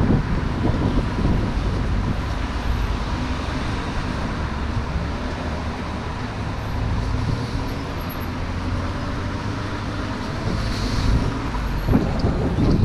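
Steady city traffic noise from cars running along a wide road, a constant low rumble.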